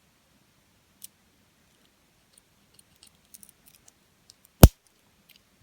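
Small scattered clicks of a Victorinox Classic keyring pocket knife's tools being handled, with one sharp, loud click about four and a half seconds in.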